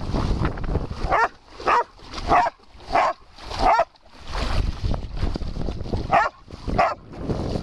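A large black long-haired dog barking: a run of five barks about half a second apart, a pause, then three more. Splashing water and wind on the microphone rush between the barks.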